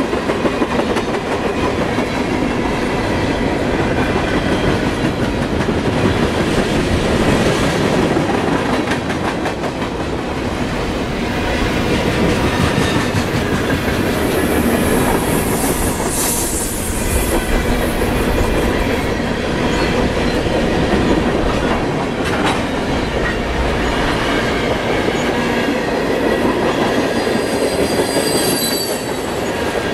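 Freight cars of a passing freight train rolling by close at hand: a steady rumble and clatter of steel wheels on the rails. There is a brief high hissing squeal about halfway through and thin wheel squeals near the end.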